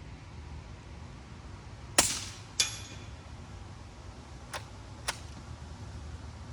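Suppressed .22 rifle shot from a Savage B22 FV-SR with a Warlock suppressor: one sharp crack about two seconds in, followed by a click with a brief metallic ring and two lighter clicks, typical of the bolt being worked.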